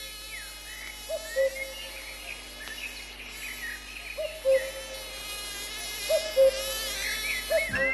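Electronic sci-fi sound effect for a flying saucer in flight: a steady synthesized drone of several held tones, with a pair of short bleeps every two seconds or so and brief warbling chirps higher up.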